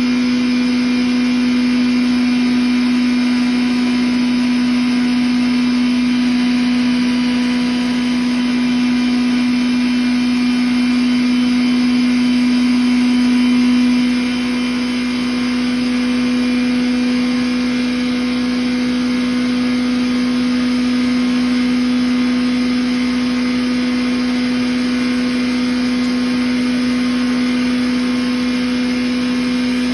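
10 HP rice husk grinder running at speed as rice husks are fed into its hopper. It makes a loud, steady mechanical hum with a high whine over it, easing slightly about halfway through.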